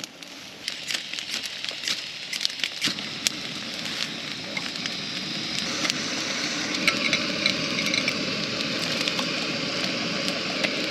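Wood campfire crackling with sharp pops. From about six seconds in, a steadier sizzle builds as raw steaks cook over it.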